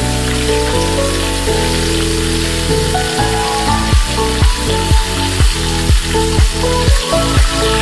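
Whole fish, by its look a tilapia, frying in hot oil in a pan with a steady sizzle. Background music plays over it and takes up a beat of deep thumps, about two a second, about halfway in.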